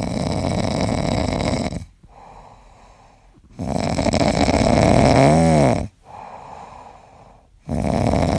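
Pomeranian puppy snoring in its sleep: three long snores about four seconds apart. The middle snore has a brief whistle in it that rises and falls.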